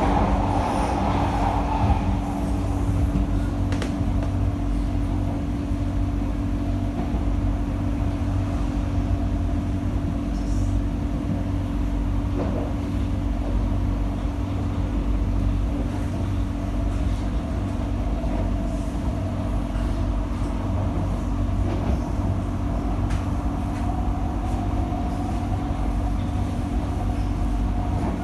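Interior of a CSR Sifang C151A MRT train running at speed: a steady rumble of wheels on rail with a constant low hum from the car. The sound is a little louder for the first couple of seconds, then stays even.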